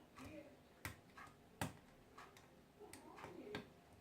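Faint, sharp metallic clicks of a lock pick and tension wrench working the pins inside a lock cylinder, a handful of separate ticks spaced roughly half a second to a second apart.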